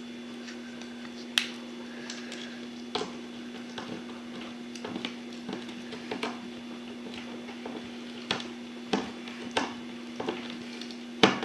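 Scattered small clicks and taps as the Phillips screwdriver of a Victorinox Swiss Champ is turned and re-gripped to drive a screw into wood, over a steady low hum.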